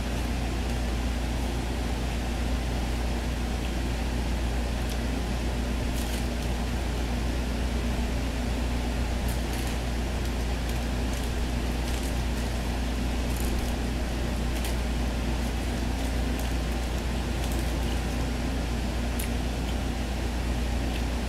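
Steady low mechanical hum in the room, with scattered light clicks and crinkles from paper food wrappers and a plastic fork being handled.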